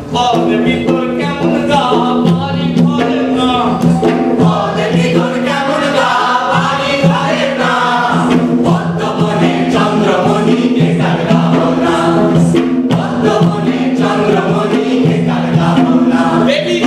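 A chorus of voices singing together, with drums beating and a steady drone held underneath.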